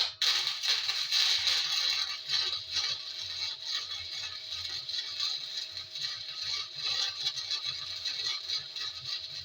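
Electric arc welding a bead along a truck frame seam: the arc strikes about at the start and runs as a steady, dense crackle.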